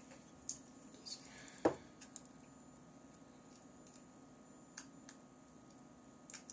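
A few light clicks and taps from handling a phone LCD screen and its tester box, with one louder knock about one and a half seconds in, over a faint steady hum.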